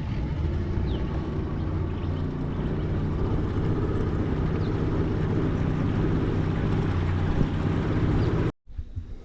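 Boat's outboard motor running steadily under way, a low even drone that cuts off abruptly near the end.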